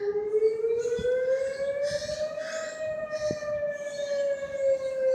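Whelen 2902 outdoor warning siren sounding a slow wail: its pitch rises for about two and a half seconds, then slowly falls.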